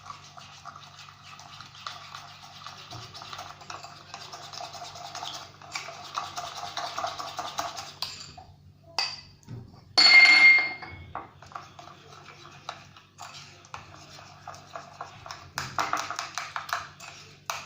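Utensil stirring a small starter of yeast, sugar, flour and warm milk-water in a bowl, in rapid scraping strokes. A loud ringing clink of the utensil against the bowl comes about ten seconds in, then the stirring resumes.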